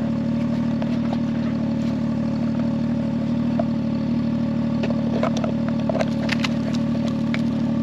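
A vehicle engine idling steadily, an even low hum. A few light clicks and scrapes come through about five to six and a half seconds in.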